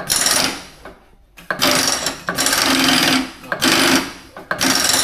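Milling machine power drawbar pulling a tool holder up into the spindle, rattling in four or five bursts of up to about a second each as the in button is pressed, until the holder is seated.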